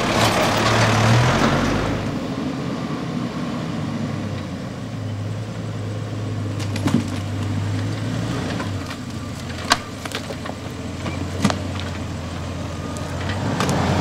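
Four-wheel drives crawling one after another over a fallen log on a dirt track, first a Mazda ute, then a Toyota LandCruiser 80 series: the engine hums low and steady under the rumble of tyres. Several sharp knocks and cracks come from the log and sticks under the wheels, the loudest about ten seconds in.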